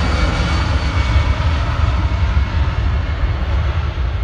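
Twin-engine jet airliner at high power on its runway roll: a steady, loud jet roar with a heavy low rumble, its higher hiss fading slowly as the aircraft moves away.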